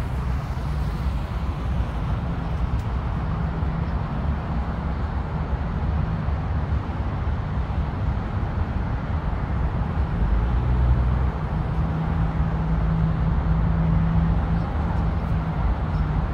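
Steady highway traffic noise, a continuous low rumble of passing cars, swelling louder about two-thirds of the way through as a heavier vehicle goes by.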